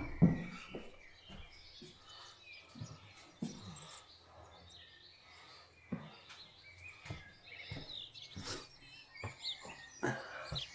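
Birds chirping on and off over a faint outdoor background noise, with scattered knocks and thumps, the loudest one right at the start.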